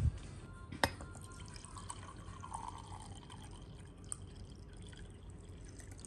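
Red wine poured from a bottle into a drinking glass, a faint, steady trickle of liquid filling the glass, after two sharp clicks in the first second.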